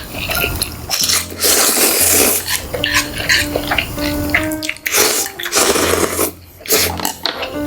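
Close-miked eating sounds: bursts of crunching and chewing, the longest about a second and a half and five seconds in, over a soft background melody.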